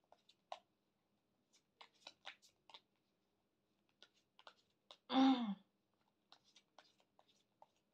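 Tarot cards being shuffled by hand: scattered soft clicks and flicks of the cards. About five seconds in, a short vocal sound from the shuffler, falling in pitch, is the loudest thing.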